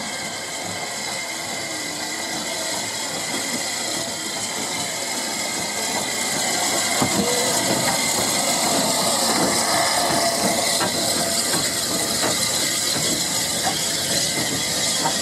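Maunsell S15 steam locomotive No. 847 moving slowly past at close range: a steady hiss of steam with scattered clicks and knocks from the running gear and wheels on the rails. It grows louder about six seconds in as the engine draws alongside.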